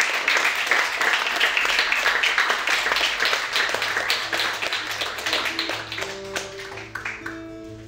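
An audience applauding, strongest at the start and dying away near the end. From about halfway through, an acoustic guitar starts picking single notes underneath the clapping.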